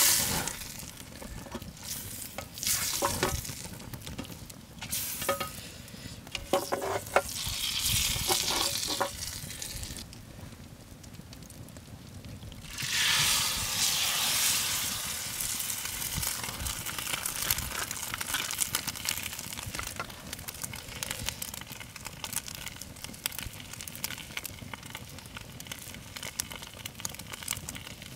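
Butter sizzling in the handle-less frying-pan top of a Trangia over a campfire, with a spoon scraping and stirring in the pan. About halfway through, a scrambled-egg mixture is poured into the hot pan and sets off a loud sizzle that settles into steady frying with small crackles.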